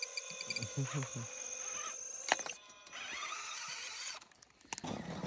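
RC truck's small electric motor whining in short runs, stopping and starting, with a sharp click about two seconds in.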